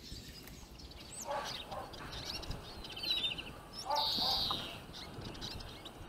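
Small finches calling around a trap cage: scattered short chirps and twitters, a quick trill a little after three seconds, and a buzzy call about four seconds in.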